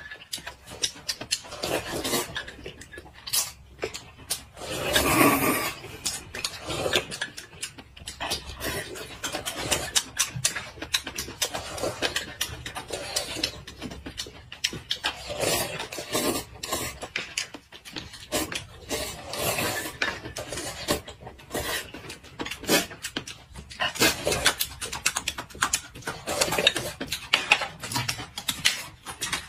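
Close-up eating sounds: slurping flat rice noodles and chewing, with many small clicks and rustles from chopsticks and spoons. There is a louder stretch about five seconds in.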